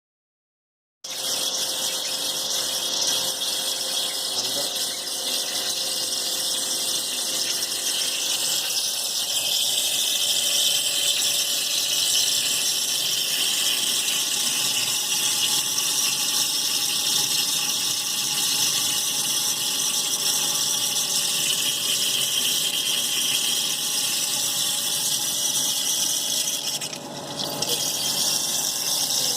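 Wire EDM machine cutting: a steady high hiss of spark discharge and water flushing that starts about a second in, dipping briefly near the end.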